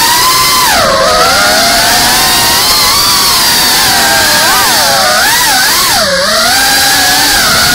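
FPV drone's brushless motors and propellers whining at close range, heard from the camera on the drone itself. The pitch rises and falls with the throttle, dropping sharply about a second in and again about six seconds in.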